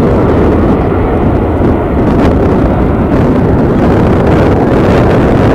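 Jet airliner engines roaring, a loud, steady deep rumble.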